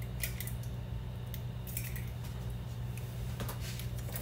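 A few light clicks and short scrapes from hands working over a stainless steel mixing bowl as an egg is added to cream cheese, over a steady low hum.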